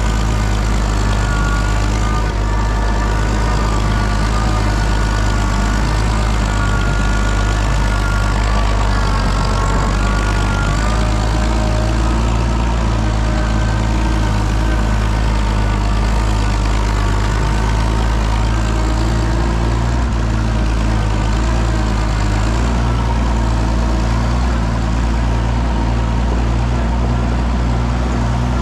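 Oliver 77 tractor's six-cylinder engine running steadily, its pitch shifting slightly now and then.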